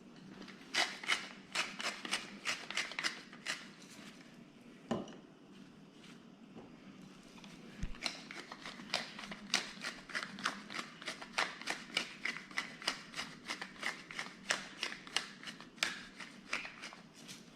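Hand-twisted spice mill grinding salt and pepper onto meat: quick runs of dry clicks, a short run near the start and a longer one from about halfway to near the end, with a single knock in between.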